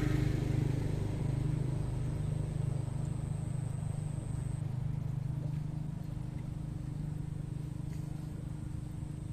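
A low, steady engine hum that slowly fades away, with a faint high steady tone that stops about halfway through.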